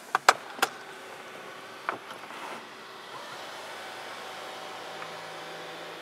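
A few sharp clicks from the overhead console controls, then, about three seconds in, the Brabus S-Class panoramic sunroof's electric motor starts and runs with a steady hum as the roof slides open.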